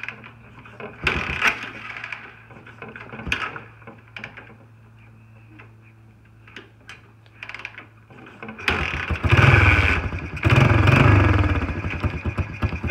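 Honda TRX300 ATV's single-cylinder four-stroke engine catches about two-thirds of the way through and runs loudly, the revs surging up and down. Before it starts there are only a few scattered knocks and clicks over a faint steady hum.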